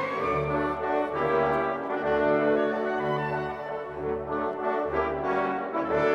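Orchestral background music, with long chords held for a second or so before changing.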